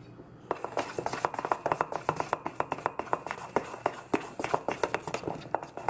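Red spatula stirring thick cornbread batter in a stainless steel mixing bowl, knocking and scraping against the metal sides in quick, even clicks several times a second. The stirring starts about half a second in.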